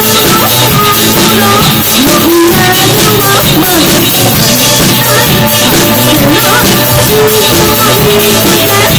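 Live rock band playing loud: a woman sings a melody into a handheld microphone over electric guitar and drums.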